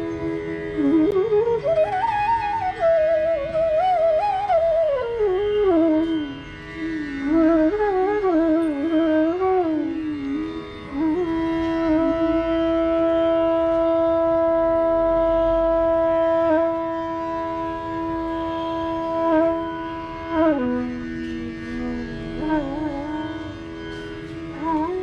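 Bansuri (bamboo flute) playing raag Yaman over a steady drone, the melody weaving through gliding, ornamented phrases and then holding one long note through the middle.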